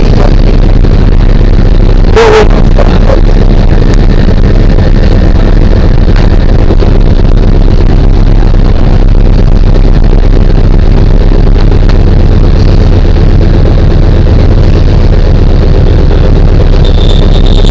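Aircraft engine running steadily, heard from inside the cabin: a loud, constant drone. A brief knock comes about two seconds in, and a high steady tone joins near the end.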